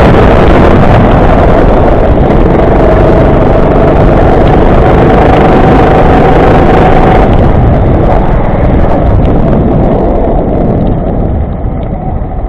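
Go-kart engine running at speed, very loud, with wind buffeting the microphone. The engine eases off about eight seconds in and is quieter still near the end as the kart slows.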